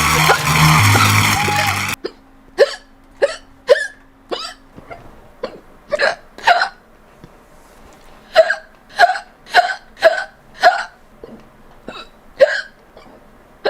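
A person hiccuping over and over, a dozen or more sharp hiccups at irregular gaps of about half a second to a second. It opens with a loud stretch of music that cuts off suddenly about two seconds in.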